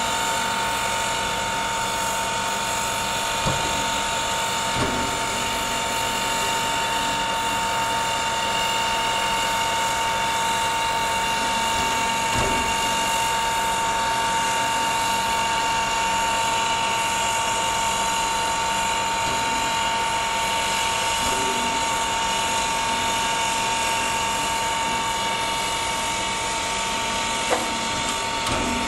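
Reading & Northern 425, a 4-6-2 Pacific steam locomotive, standing with its machinery giving a steady high whine over a hum, with a few light knocks.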